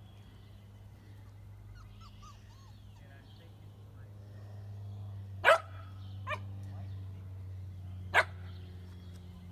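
Shetland sheepdog puppies yipping: two sharp, high yips about two and a half seconds apart, with a fainter one between them, over a steady low hum. There are faint small squeaks earlier on.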